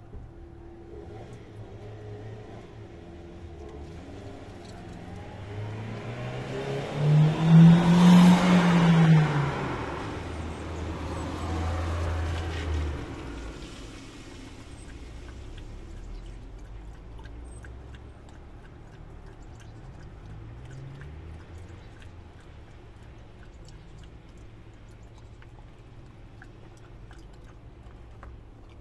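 A car passes on a wet road, its tyre hiss and engine swelling in, loudest about seven to ten seconds in, with the engine note rising then falling, and dying away by about fourteen seconds. Otherwise faint clicks of a dog chewing the bones it is eating.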